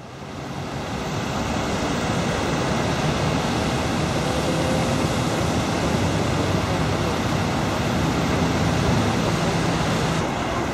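Steady roadside din of motorway traffic and a running diesel engine, with a low hum under an even rush of noise and some wind on the microphone. It fades in over the first second or two and then holds steady.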